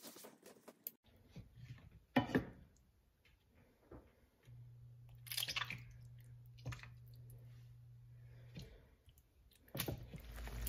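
Wooden spoon mashing whole tomatoes in their juice in a nonstick frying pan: scattered soft wet squishes and light scrapes against the pan, with a faint low hum for a few seconds in the middle.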